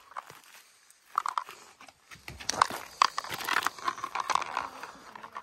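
Dry dead branches and twigs crunching and snapping as someone climbs through a fallen tree, with scuffing footsteps. The irregular cracking starts about a second in and grows denser after about two seconds.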